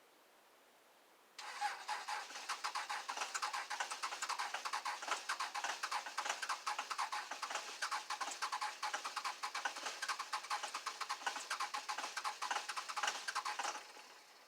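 Starter cranking the cold 2001 Dodge Cummins 5.9-litre inline-six diesel at 25°F with no block heater, a fast even chugging that begins about a second in. It runs for about twelve seconds without the engine catching, then stops suddenly.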